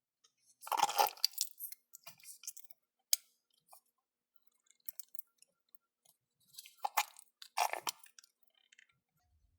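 Toy slime squelching as it is squeezed and handled, in two short wet spells about a second in and again near the end, with a single sharp click in between.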